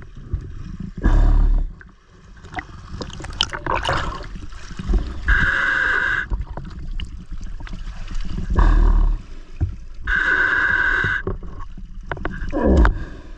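River water splashing and gurgling against a camera at the water's surface as a diver in a drysuit swims to a boat and climbs its ladder. Heavy thumps come as small waves slap over the camera, with two hissing bursts about a second long.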